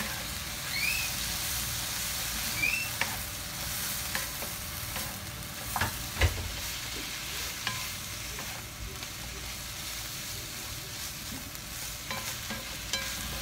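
Noodles and shredded cabbage sizzling in a non-stick wok while a wooden spatula stirs and tosses them. Scattered knocks of the spatula against the pan break the steady sizzle, the loudest about six seconds in.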